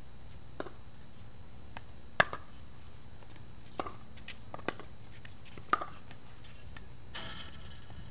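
Pickleball rally: five sharp pops of the plastic ball off paddles and the hard court, spaced about one to one and a half seconds apart, the one about two seconds in the loudest. A brief scuffing noise follows near the end.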